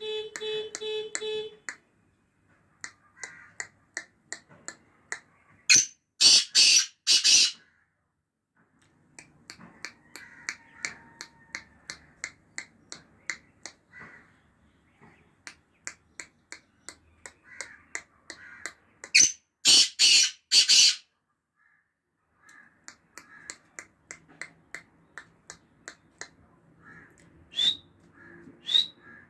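Black francolin (kala teetar) calling twice, each call a short sharp lead note followed by three loud, harsh grating notes. Between the calls are long runs of faint, evenly spaced ticking clicks, and a few shorter sharp notes come near the end.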